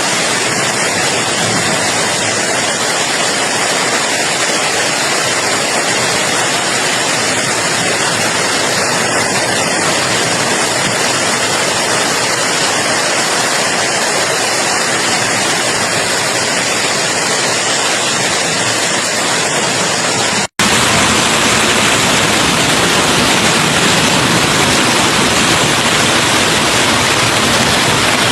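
Heavy hailstorm: rain and hail falling in a dense, steady rush of noise. It breaks off briefly about twenty seconds in, then comes back louder.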